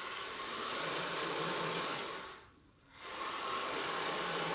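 Homemade RC car's electric drive motors whirring through their gears as the car drives across a tiled floor. The whir dies away about two and a half seconds in, then picks up again half a second later.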